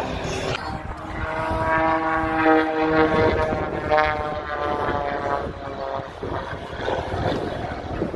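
Aircraft flying past overhead: a loud, continuous engine drone of several tones, its pitch drifting and shifting as it goes by.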